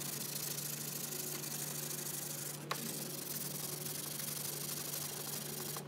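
Coarse 100-grit sandpaper rubbed by hand over a surfboard's tail, a steady scratchy sanding to prep cosmetic cracks for filling. A single click about halfway through.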